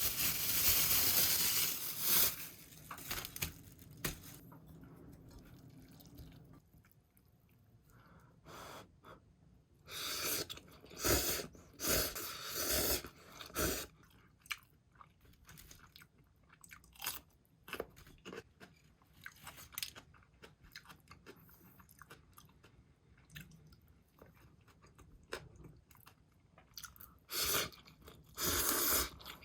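Close-miked eating: crunchy bites and chewing of food, heard in loud bursts at the start, in the middle and near the end, with quieter chewing in between.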